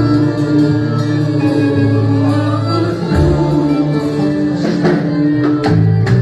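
Instrumental passage of a worship song between sung verses: sustained keyboard-style chords and bass with guitar, and a few drum or tambourine hits near the end.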